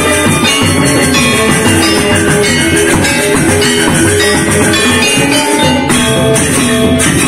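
Lombok Sasak saron ensemble playing: bronze metallophones struck with mallets in dense, overlapping notes, with small kettle gongs and a hand-played double-headed drum underneath.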